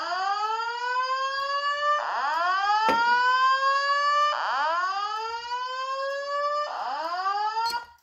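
Fire alarm speaker strobe sounding a whoop tone: loud rising sweeps, about two seconds each, repeating four times, as the alarm set off by a smoke-detector test. The tone cuts off abruptly near the end as the alarm is silenced at the panel.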